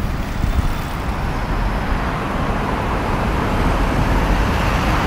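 Road traffic noise, a steady hiss of passing vehicles growing gradually louder.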